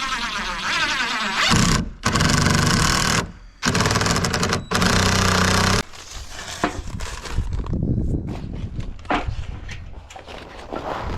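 Power drill run in three or four short, steady bursts that start and stop abruptly, typical of driving screws into framing, followed by scattered knocks and handling.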